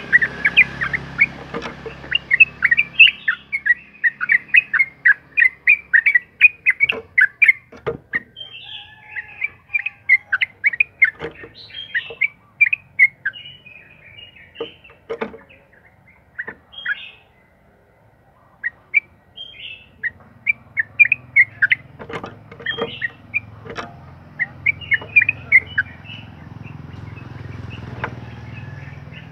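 Yellow-vented bulbul (trucukan) singing long runs of rapid chattering chirps, with a short pause past the middle. A low hum lies under the start and the last part.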